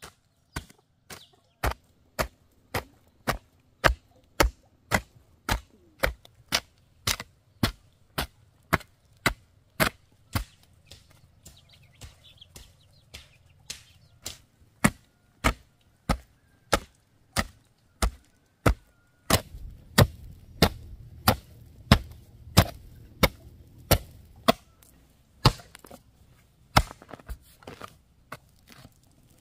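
Steady rhythmic chopping: sharp blade strokes landing on wood about twice a second. The strokes are softer for a few seconds near the middle.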